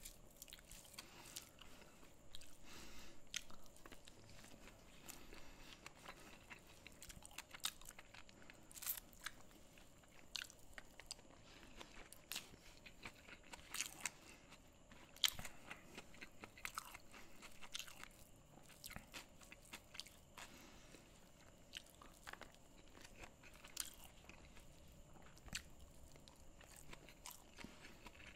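Close-miked sounds of a person eating: quiet chewing with scattered sharp crunches of crisp food, the loudest about fifteen seconds in.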